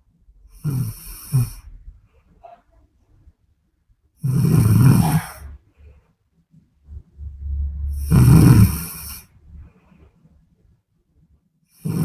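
A sleeping woman snoring, one loud snore about every four seconds: three full snores and a fourth starting right at the end.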